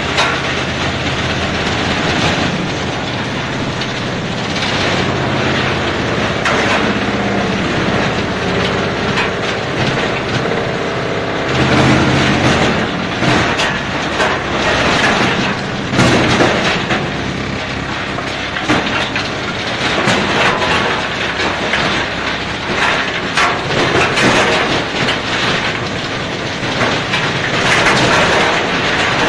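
Tub-type tree root shredder running under load, with a steady machine hum and frequent sharp cracks as wood is broken up. It grows louder in several stretches, about twelve and sixteen seconds in and again near the end.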